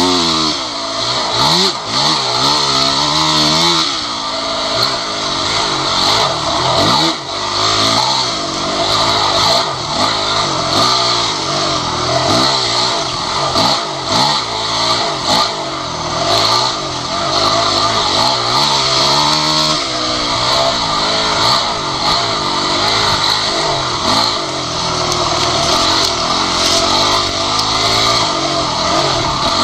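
Off-road dirt bike engine revving up and down again and again as the rider throttles and shifts along a twisty woods trail, heard from the rider's seat.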